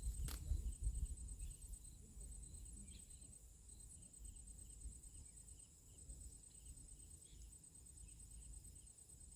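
Insects chirping: a steady, high-pitched, finely pulsed trill, with a slower chirp repeating about twice a second beneath it. A single sharp click comes just after the start, and a low rumble eases off after the first couple of seconds.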